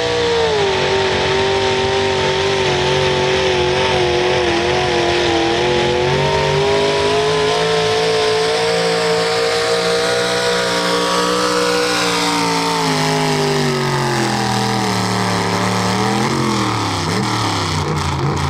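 Two-wheel-drive pulling truck's engine running at high revs under heavy load as it drags a weight-transfer sled down the track, with tyres digging in the dirt. The engine pitch holds for most of the pull, then sags and falls off near the end as the truck bogs down and the pull ends, with one quick rev on the way down.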